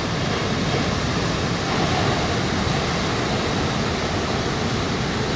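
A steady rushing noise from an animated logo intro's sound effect, even in loudness, with no beat or melody.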